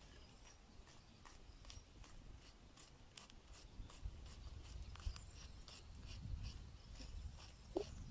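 Small knife slicing a long green pepper into rings against a flat stone: a run of faint, crisp cuts, about two or three a second.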